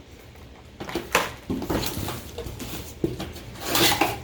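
Handling noise from unpacking craft supplies: short rustles and light knocks, with a longer rustle near the end.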